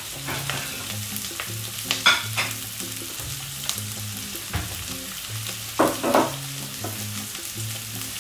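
Deep-fried tofu cubes and sliced onion sizzling steadily in olive oil in a wok over a gas flame, with a few louder crackles about two seconds in and again near six seconds.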